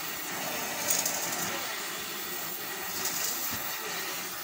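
Gas welding torch hissing steadily as its flame is worked along a Honda Activa scooter's engine casing, with the hiss swelling brighter about a second in and again about three seconds in.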